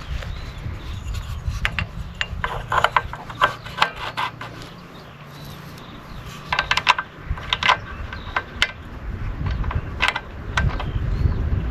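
Lawnmower recoil starter pulled twice, the rope and pawls clicking and rattling as the small engine is cranked over. This is a start attempt just after water was cleared from the carburetor, with a low engine-like rumble building near the end.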